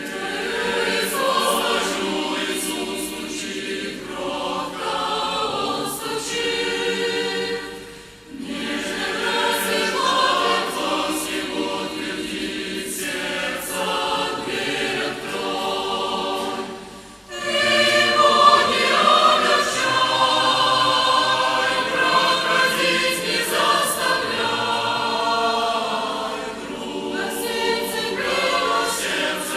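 Choir singing a Christian hymn in sustained phrases, with short breaths between phrases about eight and seventeen seconds in.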